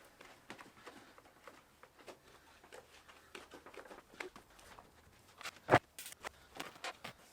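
Scattered light knocks, taps and rustles of hands-on work, irregular and unrhythmic, with one sharper knock a little before the end.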